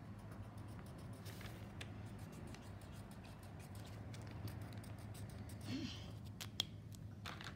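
Faint scratching of a felt-tip marker colouring on paper, with a few light taps and a brief rustle about six seconds in, over a low steady hum.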